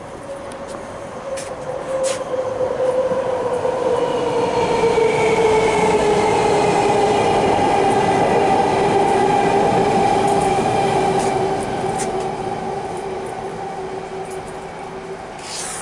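A loud passing vehicle with a steady whine in several tones that slowly falls in pitch, swelling over the first few seconds, holding, then fading toward the end.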